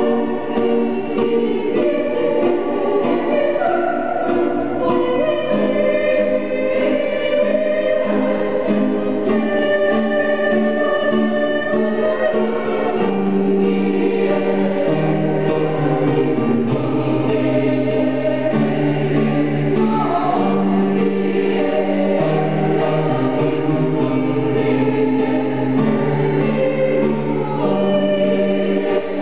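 Mixed choir of women and men singing a requiem in several parts, in slow, held chords.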